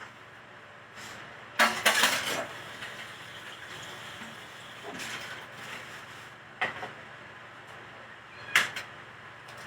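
Kitchenware clattering: a quick cluster of clanks about two seconds in, then two separate sharp knocks later on.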